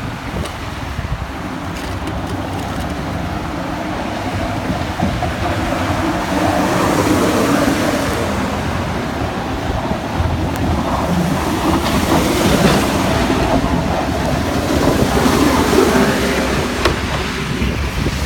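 Snow plow trucks passing in a convoy, their engines rumbling and swelling louder as they go by, with wind noise on the microphone.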